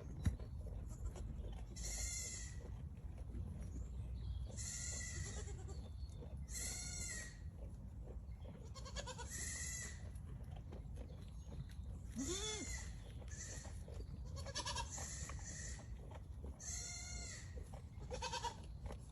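Young goats bleating over and over: about ten separate high-pitched calls, some bending up and down in pitch, over a steady low hum.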